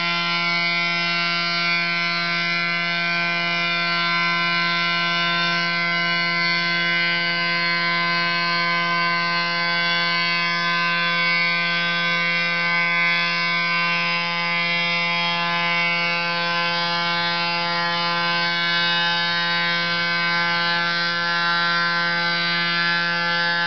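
CNC stone machining center's spindle running under load with a steady, unchanging whine as its tool cuts stone, with the hiss of coolant water spraying onto the cut.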